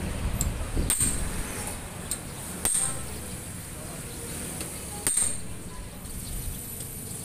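Hammer striking the steel head tube and fork steerer of an old BMX bike: three sharp metallic knocks with a brief ring, plus a couple of lighter taps, as they try to drive out a fork seized by rust.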